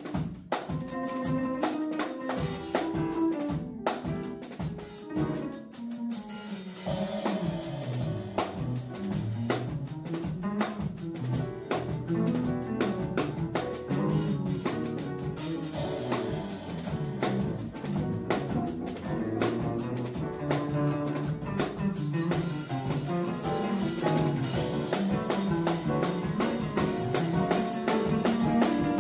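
A quartet of drum kit, electric bass, piano and electric guitar playing live, with the drum kit prominent.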